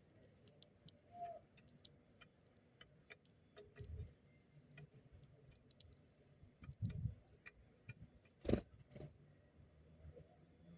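Sparrows pecking at scattered seed: faint irregular light ticks and clicks, with a few soft thumps and one sharper knock late on.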